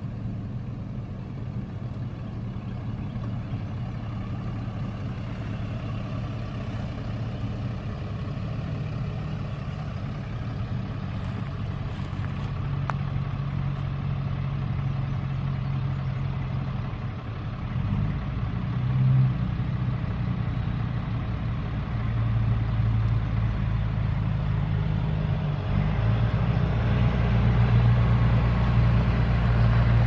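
Diesel engine of a cabover semi-truck hauling a house on a trailer, drawing steadily closer and louder, its engine note changing about two-thirds of the way through and again near the end.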